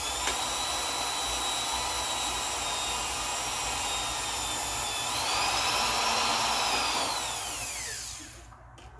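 Electric drill motor running with a steady whine, drilling holes in brittle plastic bodywork for zip ties. It speeds up about five seconds in, then winds down and stops near the end.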